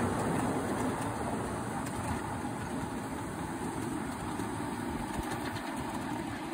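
Miniature railway train running along the track and moving away, its wheel and engine noise steadily fading.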